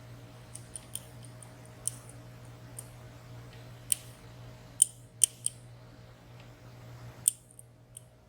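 Small, sharp metallic clicks of a lock pick working the sliders of a WSW W10 padlock, about a dozen spaced irregularly, over a steady low hum. The pick is probing for slider five, which will not set.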